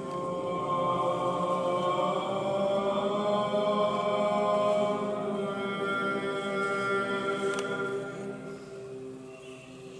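Eastern Orthodox liturgical chant: sung held notes over a steady low sustained note, easing off in the last couple of seconds.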